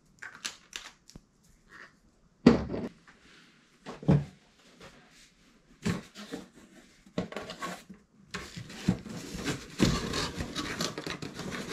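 A cardboard shipping box and packing items being handled: scattered knocks and clicks with a few heavier thumps, then from about eight seconds in a continuous crinkling, rustling of packing material.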